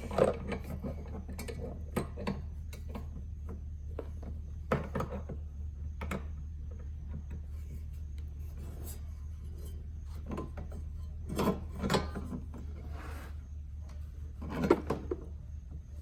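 Wrench clicking and tapping on an A/C line fitting as it is cinched down, a scattered run of sharp metal clicks over a steady low hum.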